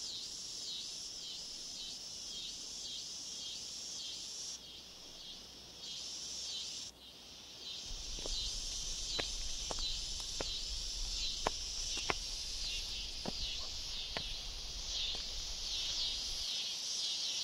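A chorus of insects chirping in a high, steady pulse of about three chirps a second. In the second half come scattered sharp clicks over a low rumble.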